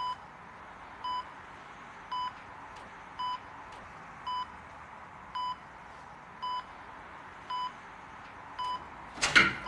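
Electronic beeping: a short, single-pitched beep repeating evenly about once a second. A brief loud rushing noise comes near the end.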